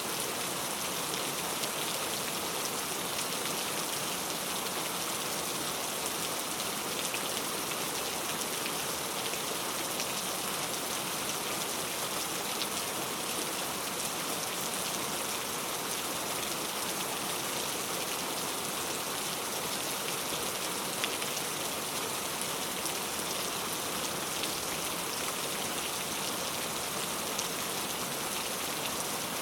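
Steady rain falling, with a dense patter of individual drops on a surface and no letup.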